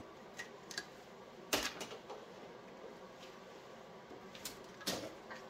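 A handful of light, sharp clicks and knocks from handling wiring and its plastic loom in a truck's engine bay; the two loudest come about a second and a half in and near the end.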